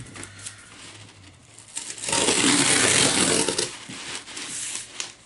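Cardboard shipping box being worked open by hand: scattered clicks and rustles, with a louder stretch of tearing or ripping, about a second and a half long, near the middle.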